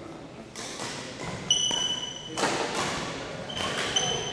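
Badminton doubles rally in a gymnasium: sharp racket hits and thuds echoing around the hall, with two short, high, steady squeaks about a second and a half in and again near the end.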